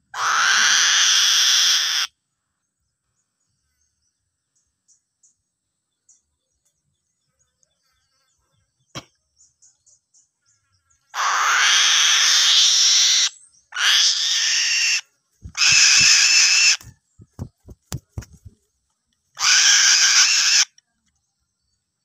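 A young bird of prey giving five loud, drawn-out screeching calls, the food-begging of a young raptor being hand-fed: one of about two seconds at the start, then four shorter ones from about eleven to twenty-one seconds in. A few sharp knocks fall between the later calls.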